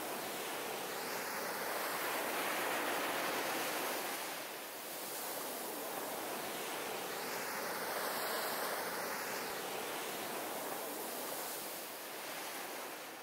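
Ocean surf washing onto a shore: a steady rushing that swells and ebbs slowly, peaking twice.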